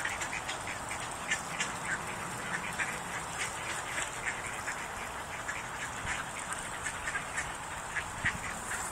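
A flock of ducks and Canada geese calling, mostly short quacks in quick succession that overlap, with no single call standing out.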